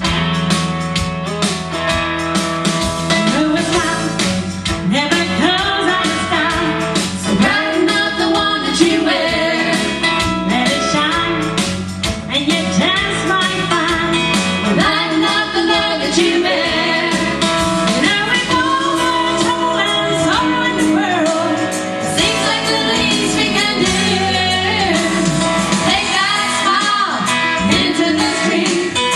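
Gospel vocal group singing a song with instrumental accompaniment, including guitar.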